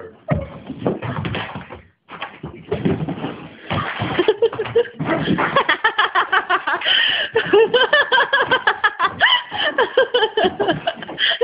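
A whippet jumping and scrambling around a small room, with thumps from its landings. From about four seconds in there is a long run of quick pulsing voice sounds, about five a second.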